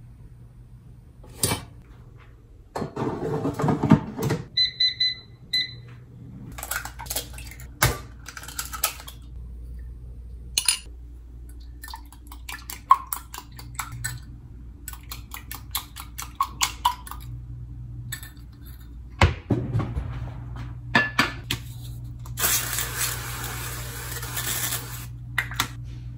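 Kitchen handling sounds: a clatter as the air fryer basket goes in, then two short electronic appliance beeps. Then a run of light ticks as a wire whisk beats eggs against a glass measuring jug, and a steady hiss near the end.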